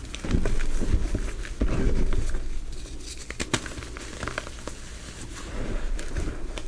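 Hands squeezing and pressing into loose gym chalk powder and soft reformed chalk pieces, giving soft, muffled crunching and crumbling with scattered crackles. Two firm squeezes come in the first couple of seconds and a softer one near the end, with only light crumbling between.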